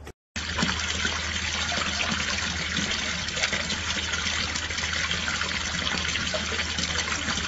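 Water pouring steadily from a spout and splashing down, a continuous rush that begins about a third of a second in, with a low steady hum underneath.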